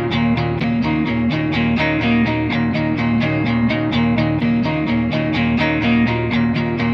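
Instrumental deep house music: a steady beat ticking about four times a second under a short repeating melodic figure.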